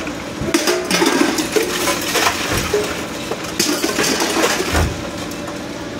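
Metal clanking and clattering: a series of sharp strikes, several with a short ringing tone, over a steady background din.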